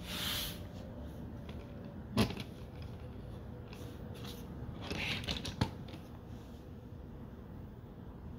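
Plastic Transformers toy cars being moved and turned by hand on a tabletop: light rustling and handling noise, with a sharp tap a little over two seconds in and another about five and a half seconds in.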